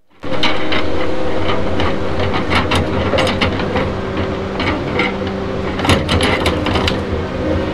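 Tigercat 234B knuckleboom log loader's diesel engine running steadily, with irregular knocks and clanks from the grapple and logs, a cluster of them about three seconds in and again near six seconds.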